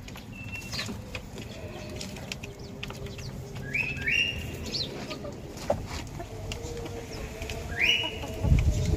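Farmyard birds calling: short, high chirping calls around the middle and again near the end, over faint lower calls and scattered clicks. A low rumble comes near the end.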